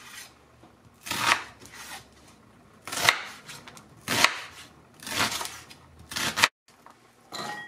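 Chef's knife cutting through a red onion and striking a wooden cutting board: about five separate, unhurried cuts, roughly a second apart.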